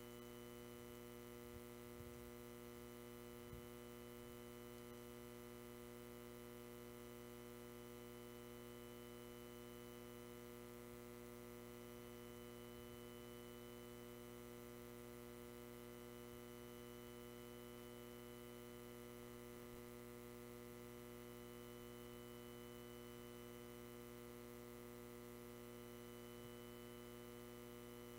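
Near silence with a steady electrical hum, and a couple of faint clicks in the first few seconds.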